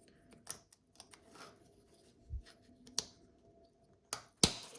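Small plastic clicks and scrapes as the parts of a car key fob body are handled and pressed together, with a sharper, louder click near the end.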